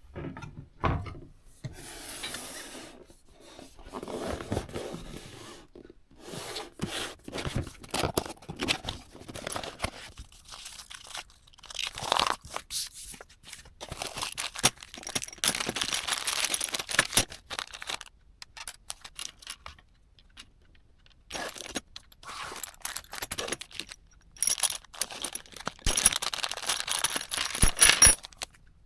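Hands working with PC parts and their packaging: irregular rustling, scraping and crinkling, broken by sharp clicks and light knocks.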